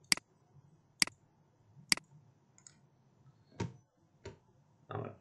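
Computer mouse clicking: three sharp clicks about a second apart, followed by a few softer, duller knocks near the end.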